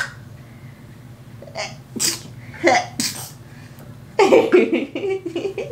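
A person sneezing several times in quick succession, with the loudest sneeze about four seconds in.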